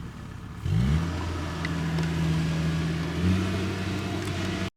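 Heavy farm machine's diesel engine revving up about a second in and holding at high revs under load, lifting slightly again near the end, before the sound cuts off abruptly.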